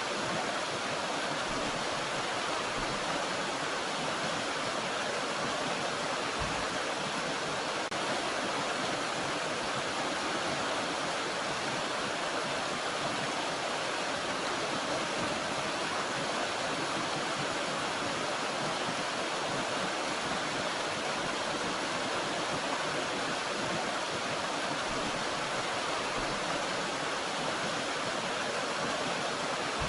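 Steady rush of water from a small mountain stream, an even hiss without pauses or changes.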